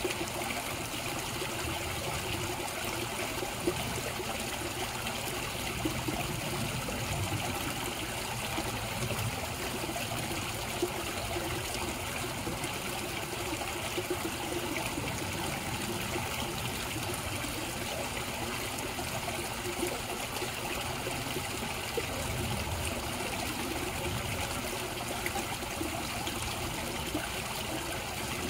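Koi pond water running and trickling steadily.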